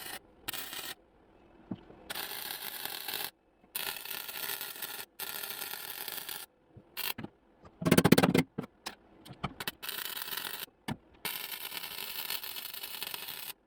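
Welder laying tack welds on a sheet-metal floor pan patch: several crackling, hissing welds, each a second or so long and stopping sharply. A single loud knock comes about eight seconds in.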